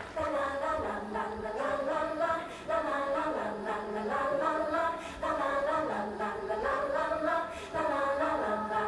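Wordless, choir-like layered voices singing a cappella, in swelling phrases of about two and a half seconds each, as the intro of a recorded pop song.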